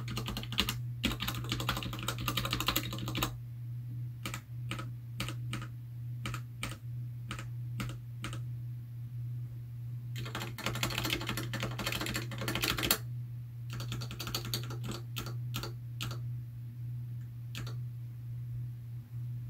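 Keychron K6 mechanical keyboard with stock, unlubed Gateron Red linear switches being typed on: two fast runs of typing, one at the start and one in the middle, with slower single keystrokes between and after. A steady low hum sits under it.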